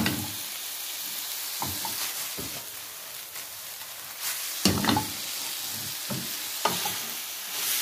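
Strips of marinated liver sizzling in hot oil in a frying pan as they are seared, with a steady hiss. A utensil scrapes and knocks against the pan several times while stirring, loudest about five seconds in.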